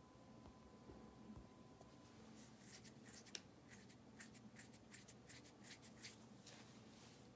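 Faint crinkling and rustling of trading card packs and cards being handled, as a quick run of small crackles through the second half.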